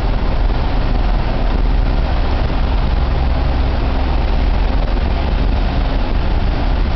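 A steady, loud low rumble with an even wash of noise over it that does not change.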